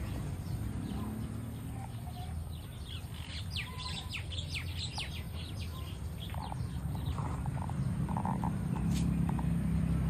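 Small birds chirping, with a flurry of quick falling chirps about three to six seconds in and sparser calls after, over a low steady rumble.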